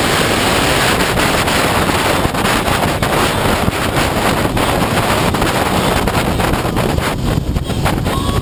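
Loud, steady wind rush buffeting the microphone of a camera mounted on a motorcycle moving at road speed, mixed with the motorcycle running.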